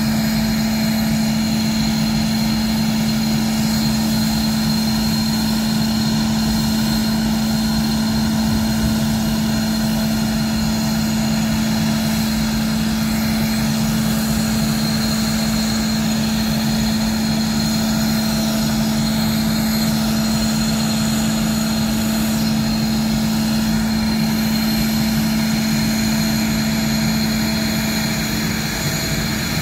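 Northrop F-5 jets' twin General Electric J85 turbojets idling on the ramp: a steady loud rush with a constant high whine over a low hum.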